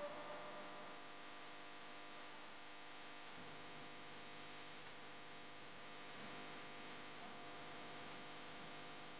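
Faint steady hum made of several held tones, with a small click at the very start.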